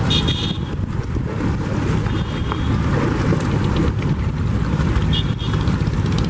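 Wind buffeting the microphone over the steady rumble of a boat engine and choppy river water.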